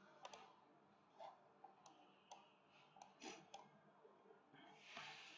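Near silence with several faint, scattered computer mouse clicks, and a soft rush of noise near the end.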